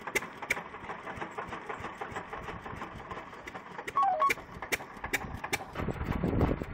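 Antique oil well pump jack running under its flywheel engine, the engine going at a steady idle with a sharp click about two to three times a second.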